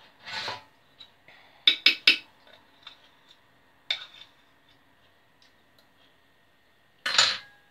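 A metal spoon clinking and scraping against a glass mixing bowl as thick cake batter is scooped out, with a quick run of sharp clinks about two seconds in and a single clink near four seconds. There is a short scraping rustle just after the start and again near the end.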